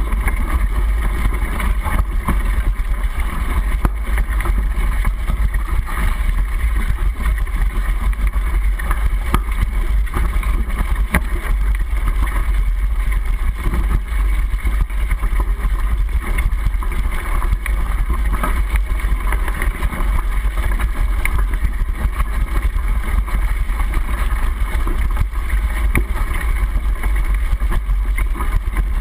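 Mountain bike riding over a rough dirt trail, heard through a handlebar-mounted GoPro in its waterproof housing: a steady, heavy rumble with constant small knocks and rattles from the bike and trail.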